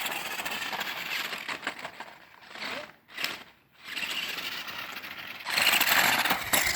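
Monster Jam Megalodon Storm 1:15-scale RC monster truck driving, its small electric motor and gears whirring, in two runs with a brief stop about three seconds in; louder over the last second.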